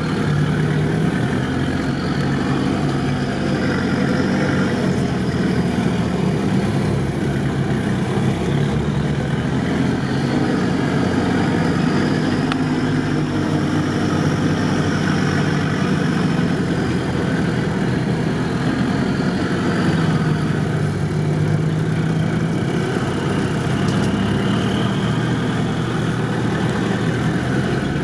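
Off-road 4x4 engine running at low speed in low gear, rising and falling gently in pitch several times as the vehicle crawls through mud.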